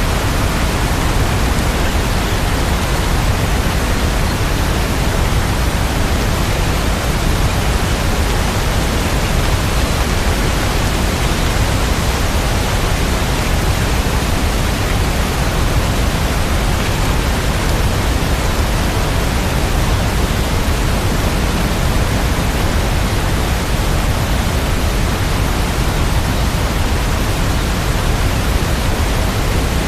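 Steady rain sound: a loud, even hiss with no separate drops, thunder or changes.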